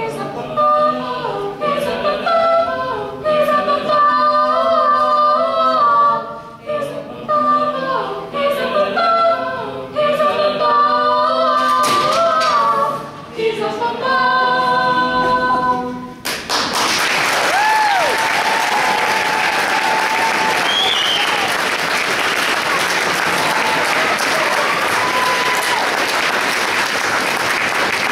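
Four-part a cappella vocal group of mixed teenage voices singing a hip-hop song arrangement, ending sharply about halfway through; an audience then breaks into steady applause with a cheer or two.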